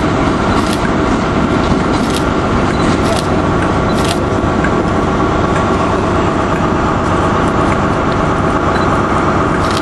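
Class 37 and Class 33 diesel locomotives pulling a train away under power, a loud, steady engine growl with a high whine in it. Wheels click over rail joints during the first four seconds.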